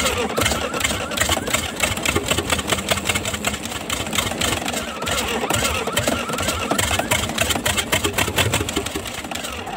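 YaMZ-238 V8 diesel engine being cranked on its starter, firing in a fast uneven rhythm and smoking without settling into a run. The owner then puts the hard starting down to air that needs bleeding from the fuel system.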